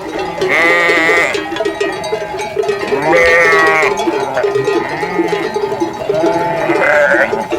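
Sheep bleating: three long, wavering bleats, about half a second in, about three seconds in and near the end, over a steady background of other calls.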